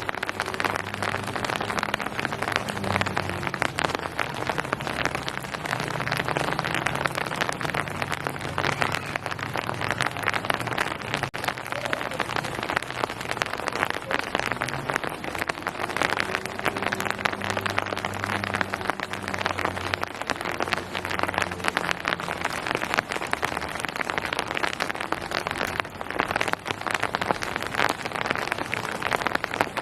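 Steady rain falling on hard surfaces: a dense, even patter of many drops, with a faint low hum coming and going underneath.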